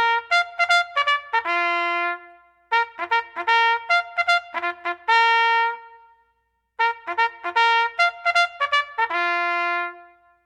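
Background music: a solo brass melody in three phrases. Each phrase is a quick run of short notes ending on a held note, with brief pauses between.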